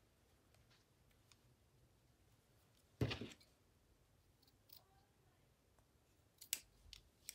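Small craft scissors snipping through the fabric edge of a stuffed cloth toy: a few short sharp clicks near the end, with a duller knock about three seconds in. Otherwise near silence.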